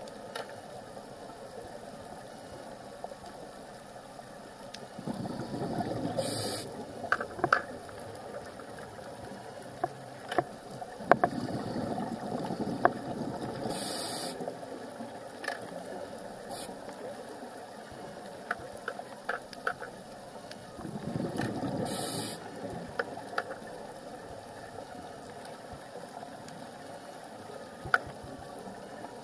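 Scuba diver breathing through a regulator, heard underwater: three breaths about eight seconds apart, each a short hiss of inhaled air and a bubbling rush of exhaled bubbles, with scattered sharp clicks between.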